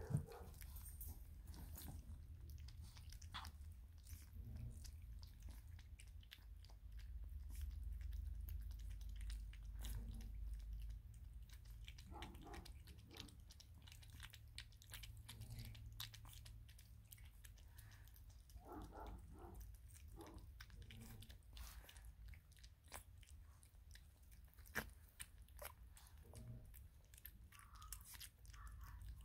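Two young Russian Toy puppies lapping and smacking at a bowl of soft mush: a steady run of faint wet clicks, with a few brief squeaks here and there.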